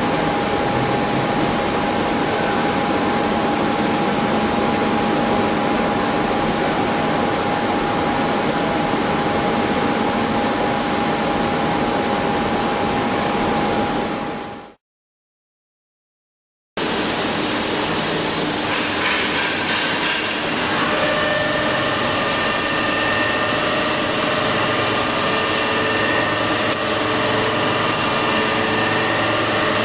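Milling head of a large horizontal machining centre roughing a pocket in a steel block with a 52 mm cutter at about 1250 rpm: a steady cutting noise with several steady whining tones that come in about five seconds into the cut. Before it, a steady machine noise with a single steady tone stops dead, with about two seconds of silence between the two.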